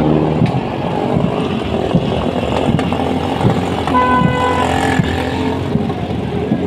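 Motorcycle engines running in slow, crowded street traffic, with a vehicle horn sounding once for under a second about four seconds in.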